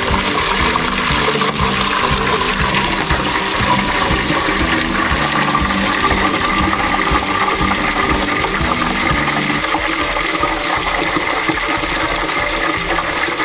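Hot oil in an electric deep fryer bubbling steadily as pieces of chicken fry in it.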